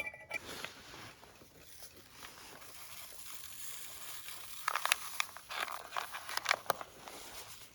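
Faint steady hiss, then a cluster of light clicks and crinkles about five to seven seconds in, as camp cookware and a packet are handled.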